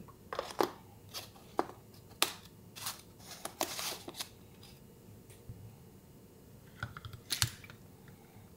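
Plastic clicks and knocks of a cold brew coffee maker's lid and mesh filter being fitted together and set into its pitcher, with a brief scraping noise about three and a half seconds in and another cluster of knocks near the end.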